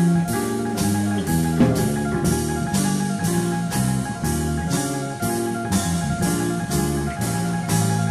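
A big band playing a medium-tempo swing tune live, with held ensemble notes over bass and a drum kit keeping a steady beat, its cymbal strokes falling about twice a second.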